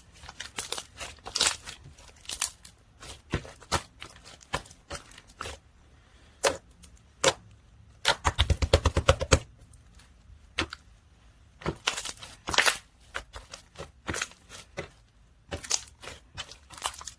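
Melted ice slime being pressed and pulled by hand, giving irregular sticky pops and crackles. About eight seconds in there is a fast run of squelching pops lasting about a second and a half.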